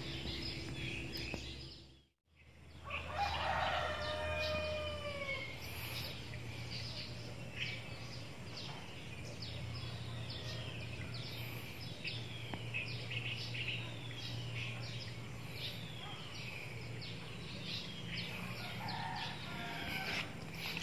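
A rooster crows once, about three seconds in, over small birds repeating short falling chirps. A low steady hum runs underneath.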